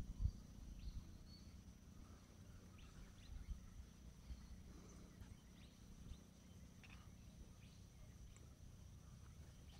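Near silence: faint outdoor ambience with a steady high whine over a low rumble, and a few scattered faint bird chirps.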